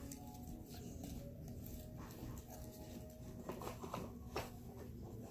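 Faint scraping and scattered light clicks of slime-making containers and utensils being handled, busiest a little past the middle.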